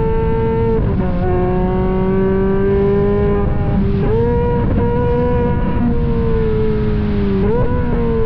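Ferrari engine with an F1-style exhaust running hard on a racetrack. It shifts up about a second in, the pitch drops and then climbs slowly. The pitch jumps up again about four seconds in and flicks up once more near the end, as it changes gear.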